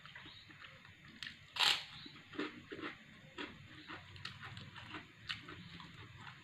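Close eating sounds: a person chewing with wet clicks and smacks, with a sharp crunch about a second and a half in and smaller crunches after, as a fried kerupuk cracker is bitten and chewed.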